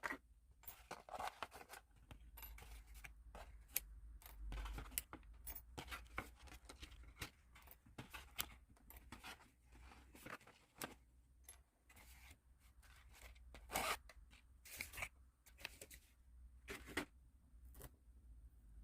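Packaging being opened by hand: faint, irregular rustling and tearing with many small sharp clicks and snips, over a low steady hum.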